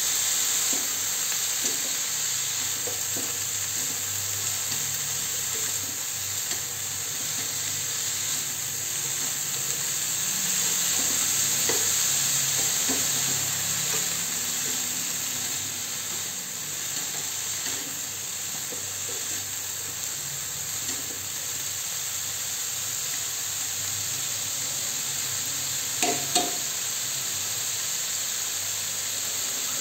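Beef and celery sizzling in a nonstick frying pan as a stir-fry, with a plastic spatula scraping and turning the food. Two quick knocks come a few seconds before the end.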